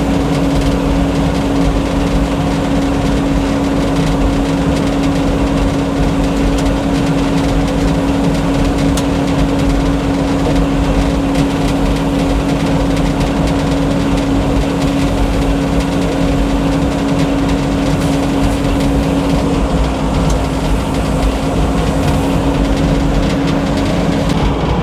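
Old Frick sawmill running, a loud steady mechanical hum with one tone held unchanged throughout.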